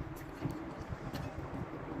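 Chewing a whole egg taken into the mouth at once, with a few faint wet clicks over a low, uneven background rumble.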